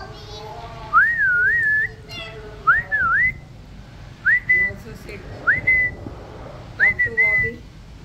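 A series of five clear whistles, each a quick upward swoop that settles on a steady high note. The second one dips and rises again before holding.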